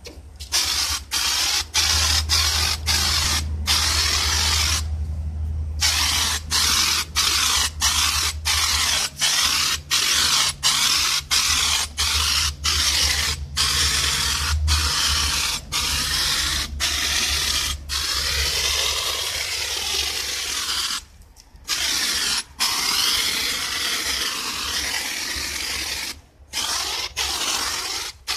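Handheld foam sprayer gun hissing as it sprays car-wash foam, in repeated bursts of about a second with brief breaks where the trigger is let go. A low hum runs beneath the hiss for much of the time.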